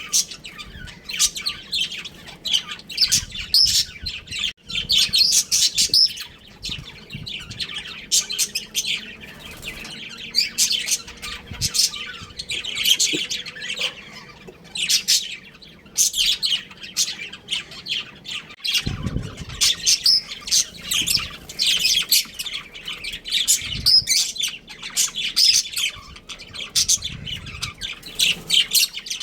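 A group of budgerigars chirping and squawking continuously, many short overlapping calls.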